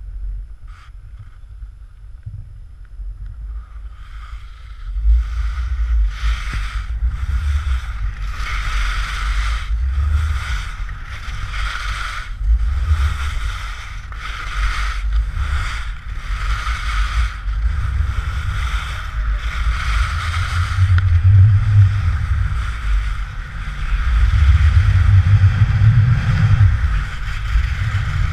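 Wind noise on a GoPro's microphone during a fast ski descent, with the skis' edges scraping across hard-packed groomed snow. From about five seconds in until past the middle, the scraping comes in a steady rhythm of short turns, about one a second; the first few seconds are quieter.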